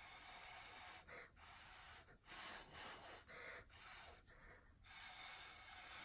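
Faint, short puffs of breath, one after another, blown by mouth onto wet acrylic pouring paint to push it out toward the canvas edge.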